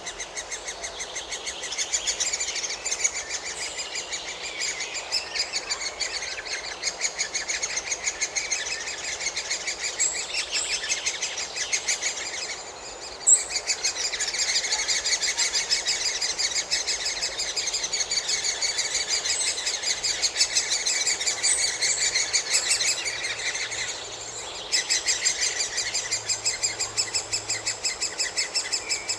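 Great spotted woodpecker nestlings begging: a rapid, continuous chatter of high-pitched calls. It pauses briefly twice, once with a sharp click at the nest about thirteen seconds in.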